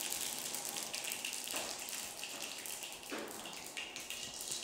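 Mustard and cumin seeds sizzling and crackling in hot oil in a frying pan: the tempering stage of an Indian curry.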